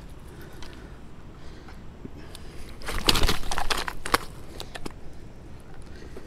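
A common carp thrashing on a mesh landing net on sand as it is handled: about three seconds in, a burst of rustling and slaps lasting roughly a second, ending in one sharp slap.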